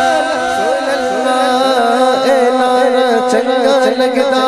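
Male naat reciter singing a sustained, ornamented devotional line into a microphone.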